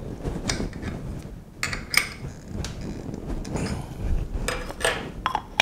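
Light metal clinks and taps of a half-inch end mill being fitted into a milling machine's spindle: a handful of separate clicks, the sharpest about two seconds in.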